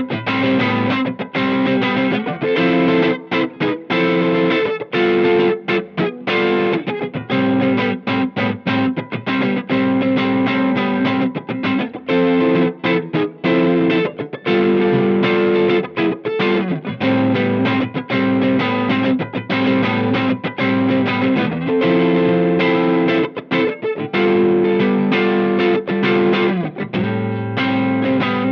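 Electric guitar played through a Cornerstone Antique Classic Drive V2, a Tube Screamer-style overdrive pedal, giving an overdriven tone. It plays a passage of chords and riffs, with many brief stops between the chords.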